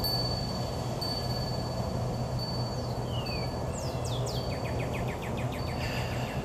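A steady low hum with high, thin bird calls over it. There are short falling chirps about three seconds in and a quick trill about a second later.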